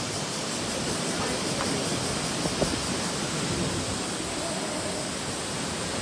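Steady, even rushing of rough, storm-driven surf among rock cliffs and a sea cave, with one brief knock about two and a half seconds in.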